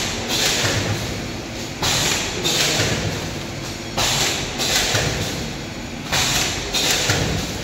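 Multihead weigher and collar-type vertical pouch packaging machine running, with a sharp hissing burst about every two seconds over a steady low mechanical rumble, one burst for each repeat of the packing cycle.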